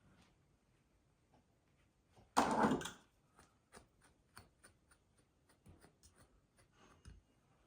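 Short scratchy strokes of a comb pulled through faux fur, about two a second, after a single louder rustling clatter about two and a half seconds in.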